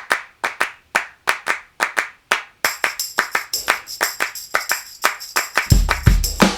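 Music: a track opening with a rhythmic hand-clap pattern, about three or four claps a second. A jingling tambourine joins about two and a half seconds in, and a deep bass beat comes in near the end.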